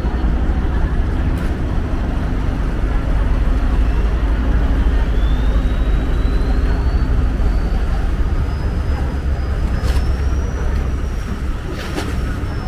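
A riverboat's engine running with a steady low rumble. A faint high whine rises slowly from about four seconds in and then holds steady. There are a couple of sharp clicks near the end.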